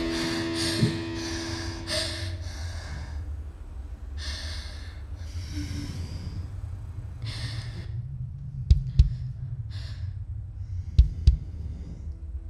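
A person breathing heavily, with about six loud, separate breaths over a low rumble. From about two-thirds of the way in, a heartbeat effect begins: pairs of low thumps, a pair about every two seconds.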